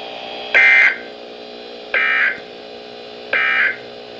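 Emergency Alert System digital data tones from a NOAA Weather Radio broadcast: three short, identical electronic warbling bursts, evenly spaced, over a steady radio hum. The bursts are short and follow straight after the spoken warning, which marks them as the end-of-message code closing the severe thunderstorm warning.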